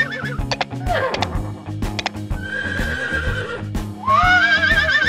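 Horse whinnying three times, a wavering, trembling call each time, with background music under it.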